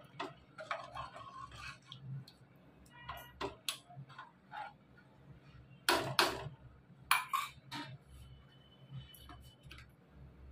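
Steel spoon stirring curry in an aluminium pot, with scattered light clinks against the pot. Two sharper metallic knocks come about a second apart a little past the middle, as the spoon is lifted out and tapped.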